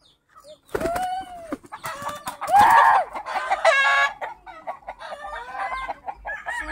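Chickens clucking and calling loudly, with the loudest calls about a second in and around three seconds in.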